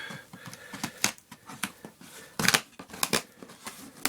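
Reinforced packing tape on a cardboard shipping box being cut and worked open: a series of short, sharp scratching and ripping strokes, the loudest about two and a half seconds in.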